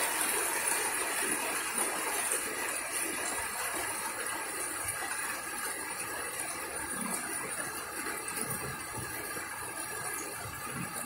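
Steady background hiss with faint sounds of someone drinking from a plastic cup in long swallows.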